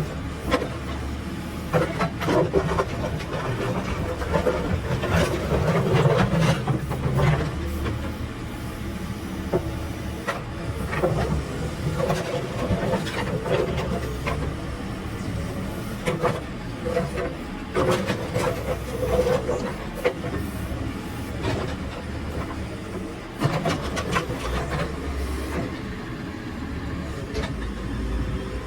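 Diesel engine of heavy construction machinery running steadily, with irregular knocks and clanks throughout.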